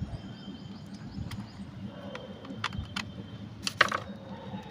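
Light clicks and knocks of a plastic toy RC jeep being handled, a few scattered taps with the loudest one nearly four seconds in.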